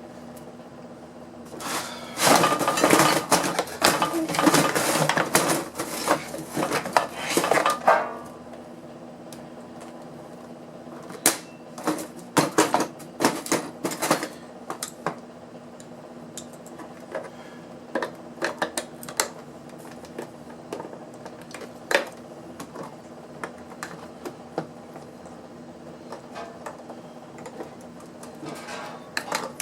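Small metal parts and hand tools clattering and clinking as an electronic device is taken apart for scrap: a dense run of clatter lasting about six seconds, starting about two seconds in, then scattered single clicks and clinks, over a faint steady hum.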